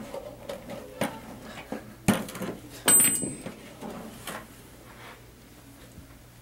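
Sand being scooped and tipped into a plastic bucket: a run of knocks and scrapes, the loudest about two and three seconds in, one with a brief metallic ring, then quieter handling.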